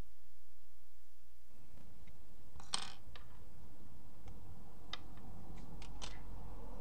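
Small plastic clicks from an HTC Sensation's thin back plate being pried off its frame with plastic case-splitter tools, its clips letting go: one sharper snap about three seconds in, then several lighter clicks.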